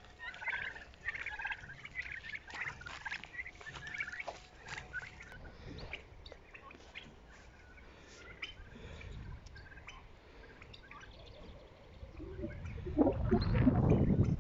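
Young domestic turkeys calling in a flock: scattered high chirping calls with small clicks in the first five seconds, then quieter. A louder burst of sound comes near the end.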